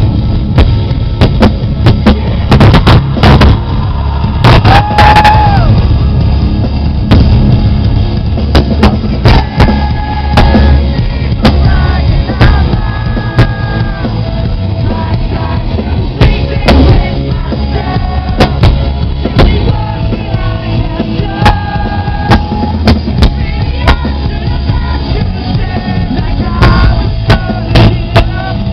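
Live rock band playing at full volume, with pounding drums, heavy distorted guitars and bass, and a singer holding notes over the top. The sound is overloaded and distorted from being recorded right beside the PA speakers.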